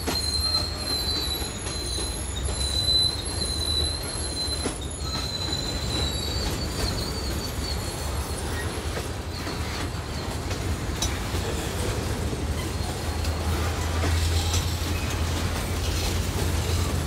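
Freight cars of a passing freight train rolling by with a steady low rumble. The wheels squeal with a high, wavering tone for the first six seconds or so, then the squeal fades, leaving the rumble and occasional clicks of wheels on rail.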